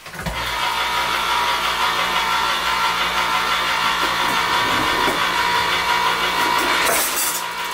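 Electric can opener's motor running steadily as it cuts around a can of corn, a whining hum with a brief rattle about seven seconds in.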